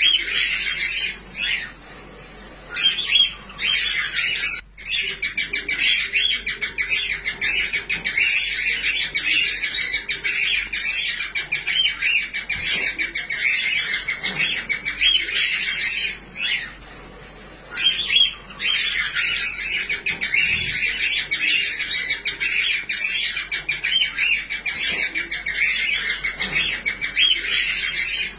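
Newly hatched cockatiel chick begging while being fed by its parent: a rapid, continuous run of high chirping cheeps, broken by a couple of short pauses.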